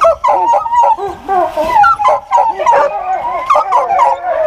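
A pack of deer hounds baying and yelping together, many voices overlapping without a pause, as they work a deer's scent along the brush.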